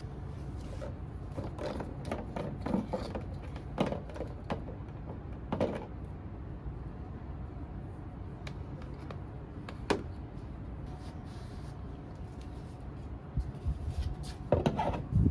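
Scattered clicks and knocks of objects being handled, with a quick run of knocks near the end, over a steady low hum.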